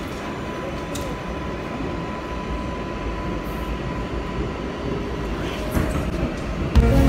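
New York City subway train running, heard from inside the car: a steady rumble and rush of wheels on the track, with a faint steady high tone through the first half. Music comes in near the end.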